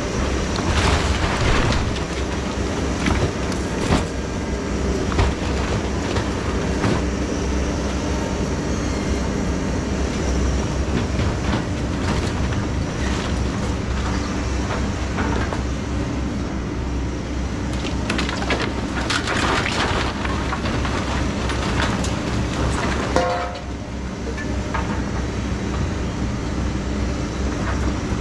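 Takeuchi TB2150 excavator's diesel engine running steadily under load while its bucket and thumb tear into a wood-frame house: timber cracking and splintering and debris crashing down, heaviest about a second in and again about two-thirds of the way through. A short squeal comes near the end, after which the machine runs a little quieter.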